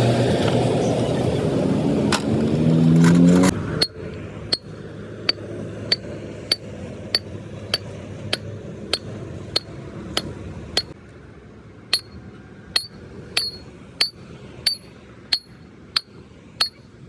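A vehicle engine runs with its pitch rising, then cuts off abruptly about three and a half seconds in. It is followed by a steady series of hammer blows on steel, about one and a half a second, each with a bright metallic ring, as the truck's broken axle and leaf-spring parts are worked on.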